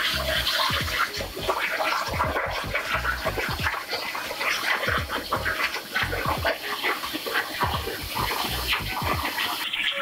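CNC plasma cutter torch cutting thin steel plate: a steady hiss full of irregular crackling from the arc.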